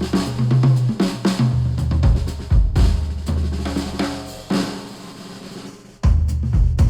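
A recorded pop track with drum kit and bass, played through an open headphone and picked up by microphones at the ear cups. About four and a half seconds in the bass and drums drop away and the sound thins and fades, then the full beat comes back suddenly at about six seconds.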